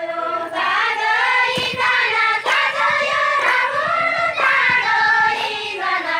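A group of women singing a folk song together in unison, high-pitched, with a few sharp knocks now and then.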